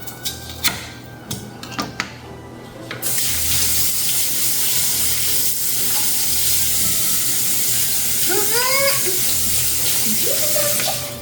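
A few sharp knocks and clicks, then a kitchen tap running steadily into the sink from about three seconds in. Two short rising calls sound near the end.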